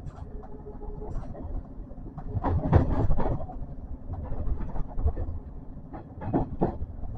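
Kintetsu electric train running on the Nara Line, heard from inside the leading car: a steady rumble, with the wheels clacking over rail joints in two quick clusters, one about a third of the way in and one near the end.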